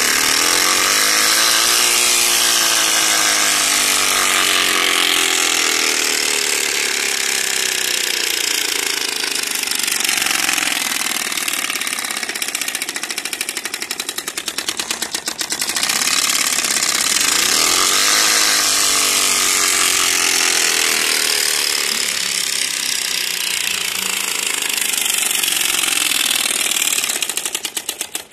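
Rapid, loud rattling buzz of a piece fixed with wire to a bicycle so it flicks against the turning wheel's spokes, imitating a motorcycle. The rattle speeds up and rises in pitch twice as the wheel gathers speed, eases off around the middle, and stops suddenly at the end.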